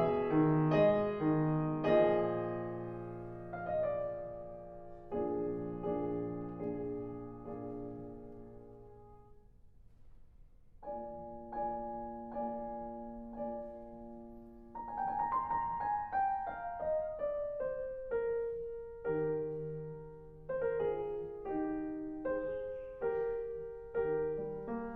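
Background piano music, a slow melody of struck notes that thins out to near quiet about ten seconds in and then picks up again.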